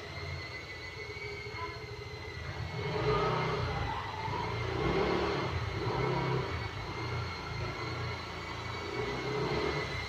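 Happymodel Cine8 cinewhoop's motors spinning Gemfan D51 five-blade ducted propellers. It makes a steady high whine over rushing air that swells louder and softer several times.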